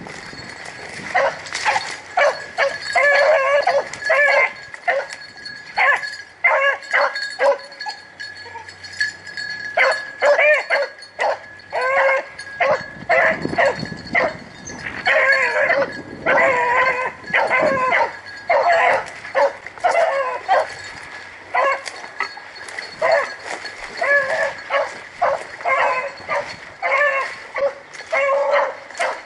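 Rabbit-hunting dogs baying over and over, short calls coming in quick runs with brief gaps, the sound of hounds running a swamp rabbit's trail.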